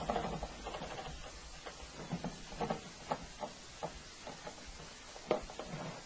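Faint, scattered short clicks and taps in a quiet room, a few each second, the most distinct about five seconds in.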